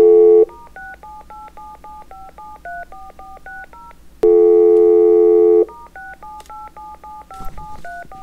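Telephone dial tone, then a quick run of touch-tone keypad beeps as a number is dialled. A second dial tone about four seconds in is followed by another run of key beeps.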